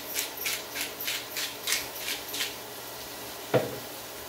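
Pepper mill being twisted, grinding pepper in short, evenly spaced strokes about three a second, stopping about two and a half seconds in. A single sharp knock follows about a second later.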